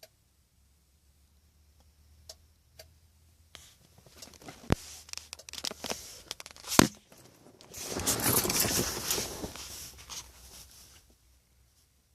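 A few faint, sharp clicks from under the dashboard of a 2000 Nissan Maxima, which the owner suspects is a sticking relay. From a few seconds in they are buried under crackling, rustling handling noise with a couple of loud knocks, loudest in the last few seconds.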